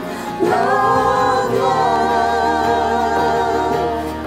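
A small group of voices sings a worship song together, holding a long sustained note.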